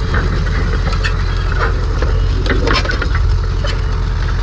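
An engine running steadily with a low, even rumble, with scattered clicks and scrapes over it.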